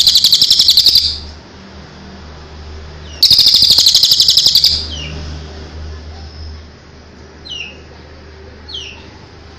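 Contest songbirds singing. A loud, rapid, buzzy trill ends about a second in, and a second one comes at about three seconds and lasts a second and a half, followed by a few faint, short, falling chirps.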